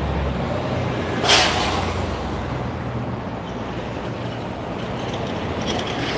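City street traffic, engines running steadily, with a short sharp hiss of a bus's air brakes venting about a second in.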